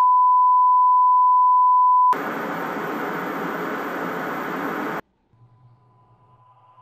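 TV colour-bar test tone: a loud, steady single-pitch beep for about two seconds, cut off abruptly by TV static hiss that lasts about three seconds and stops suddenly. A faint low hum follows near the end.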